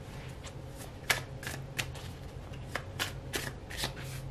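A tarot deck being shuffled by hand: a dozen or so quick, irregular papery flicks.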